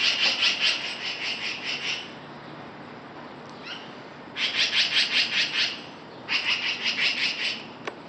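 Black-billed magpies giving their harsh, rapid chattering alarm call in three bursts, mobbing a cat near their nest.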